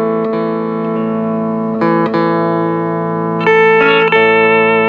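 Hawaiian steel guitar playing a slow melody in long held notes, with a wavering vibrato on the notes near the end, over a steady low accompaniment.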